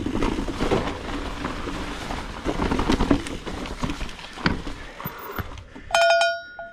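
Mountain bike rolling over rocky dirt singletrack, tyres crunching with rattles and clicks from the bike. About six seconds in, a hanging trail cowbell is struck by hand, giving a clanking metallic ring.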